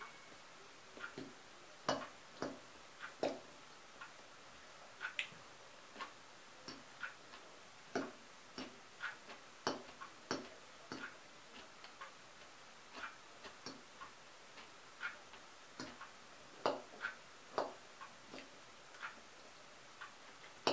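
Metal fork clinking and scraping against a china bowl while eating salad: irregular light clicks, about one or two a second.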